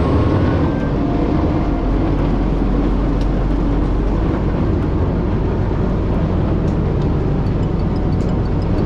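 Fishing boat's inboard engine running under way, a steady low drone with the rush of churned water from the propeller wash.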